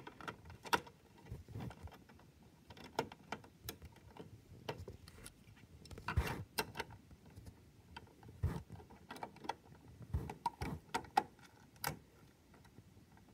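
LEGO plastic pieces being handled and pressed into place: light clicks and taps at irregular intervals, with a couple of firmer knocks midway.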